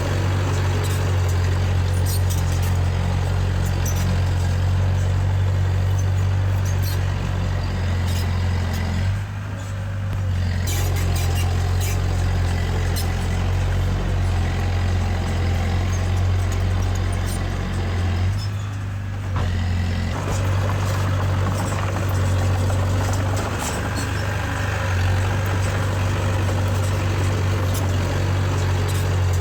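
Diesel engine of heavy earthmoving machinery running steadily at working speed, with scattered metallic clinks. The engine note drops briefly twice, about a third and two thirds of the way through.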